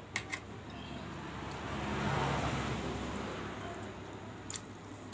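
A passing road vehicle: a broad rush that swells to a peak about two seconds in and fades away. Near the start there are two light clicks as a glass bowl is set down on the table.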